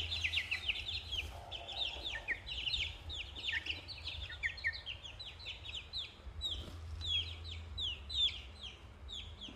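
A brood of young chicks and ducklings peeping: rapid, overlapping high chirps, several a second, each falling in pitch.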